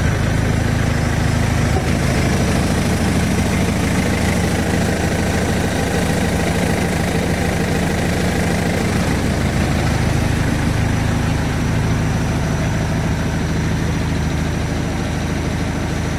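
Yanmar AW70V combine harvester's diesel engine running steadily.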